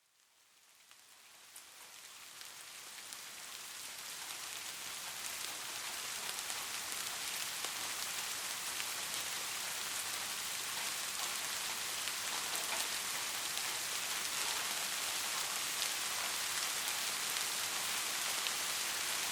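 Steady rain falling on a surface, a dense hiss with many small drop ticks, fading in from silence over the first several seconds and then holding steady.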